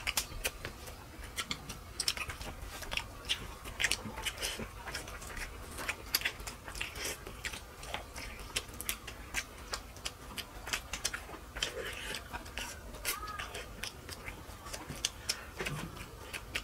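Close-miked eating sounds of rice and fish curry eaten by hand: chewing and lip-smacking, with a rapid, irregular stream of wet clicks.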